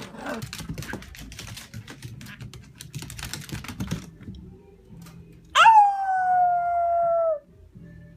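A puppy gives one long, high whine lasting nearly two seconds, its pitch falling slightly, about halfway through. Before it come a few seconds of quick, light clicking and scratching.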